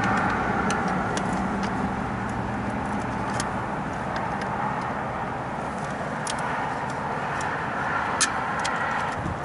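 A steady mechanical drone, with scattered sharp clicks and rustling from hands and a jacket sleeve working on the wiring close to the microphone.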